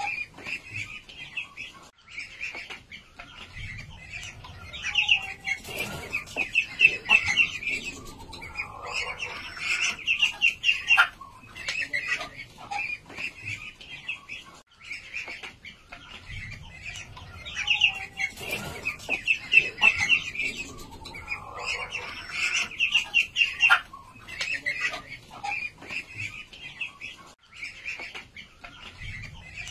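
Young white Muscovy ducks peeping: runs of quick high calls a second or two long, repeated again and again, with a few soft knocks in between.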